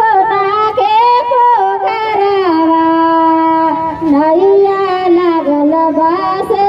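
A high voice singing a slow melody, holding long notes that slide and bend between pitches.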